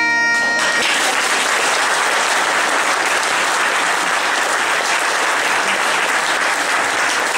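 Bagpipe music stops less than a second in, and an audience claps steadily in a hall.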